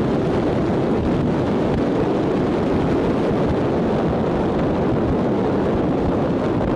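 Steady rush of wind and water noise from a boat moving at speed on open water, with no clear engine note and no changes.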